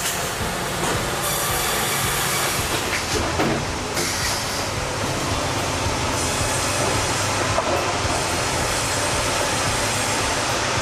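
Log sawmill with a dual-blade bandsaw and a log carriage running on rails, making a loud, steady mechanical noise with a few faint clicks.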